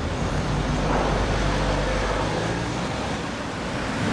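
A car engine running at a steady low note amid street traffic noise; the low note fades about two seconds in.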